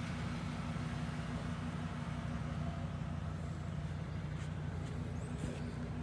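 An engine running steadily with a low, even hum.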